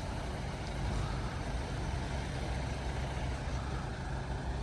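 Heavy diesel vehicle engine idling steadily, a low even rumble.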